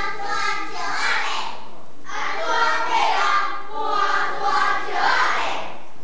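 A group of children chanting a Taiwanese Hokkien poem in unison, in two phrases with a short break about a second and a half in.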